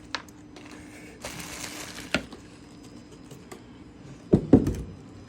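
Parts and packaging being handled: a few sharp clicks and knocks, a short stretch of rustling about a second in, and two louder knocks near the end.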